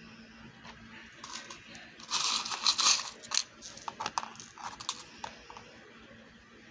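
Small gold-tone metal charms clinking and rattling as a hand picks them out of a plastic compartment box: a dense burst of clinking about two seconds in, then scattered single clinks until about five and a half seconds in.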